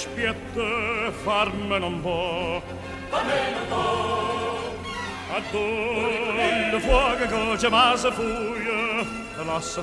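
Opera music: singing with a wide, steady vibrato, with more than one voice at times.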